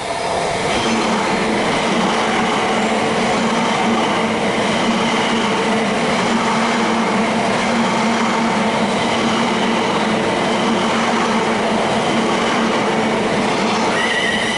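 Class 345 Aventra electric multiple unit running through the station: a steady loud rush of wheels on rail with a constant low hum, lasting over a dozen seconds as the long train goes by. Near the end a high wavering whine joins in.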